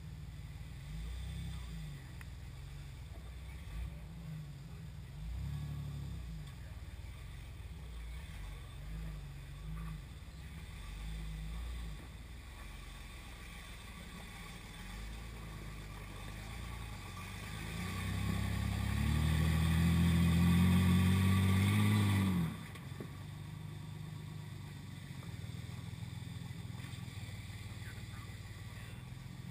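Low, steady vehicle rumble, then a motor vehicle's engine swells to the loudest point over a few seconds, its pitch rising slightly, and cuts off suddenly about three-quarters of the way through.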